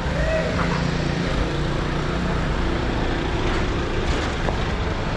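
Street traffic, with a motor vehicle's engine running steadily as a low rumble.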